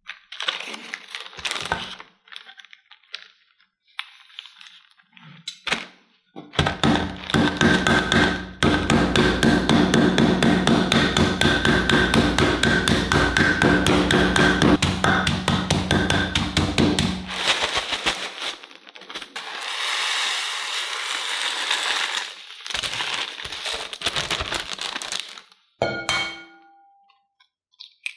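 A dry instant-ramen block being crushed inside a plastic zip-lock bag on a wooden cutting board: a rapid, even crunching, about seven strokes a second for some ten seconds. The crumbs then rustle as they are poured into a bowl, and near the end an egg is cracked against the rim of a glass bowl with a short ring.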